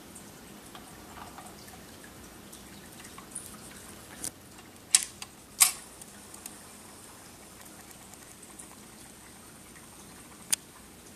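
Dual 1019 automatic turntable's record changer cycling: a few light mechanical clicks, then two sharp clacks a little over half a second apart midway as the spindle drops the next record, and one more sharp click near the end.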